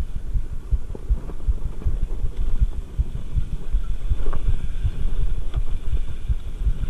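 Mountain bike rolling along a rough dirt singletrack: an irregular low thumping rumble from the tyres and bike on the bumpy ground, with a couple of faint clicks.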